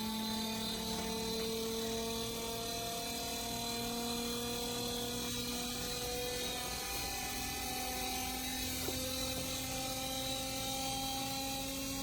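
Steady motor hum, its several tones rising slowly in pitch.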